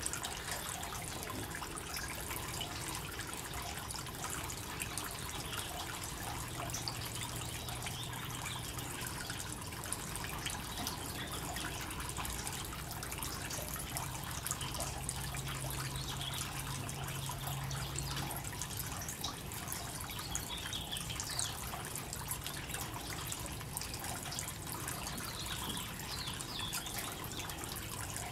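Small garden fountain trickling steadily, thin streams of water spilling over the rim of its metal flower-shaped basin.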